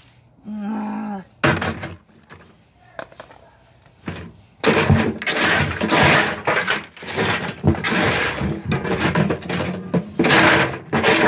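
Broken terracotta pot shards clattering and scraping in a metal wheelbarrow as pots and a tin can are set down among them, dense and loud from about four and a half seconds in. There is a single knock about a second and a half in.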